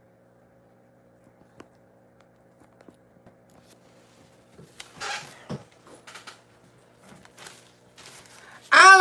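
Faint steady hum with scattered clicks, knocks and rustles of handling as the camera is adjusted and a person settles into a chair. Near the end a loud held vocal note in a woman's voice starts abruptly.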